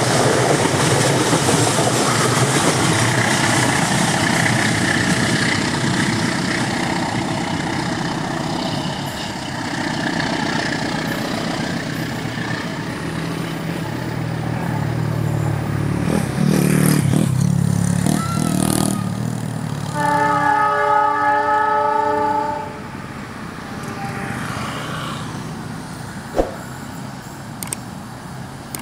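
Passenger train running across a concrete viaduct, wheels rumbling and clattering on the rails. A train horn sounds once, about two and a half seconds long, roughly two-thirds of the way through. After that the rumble fades as the train draws away.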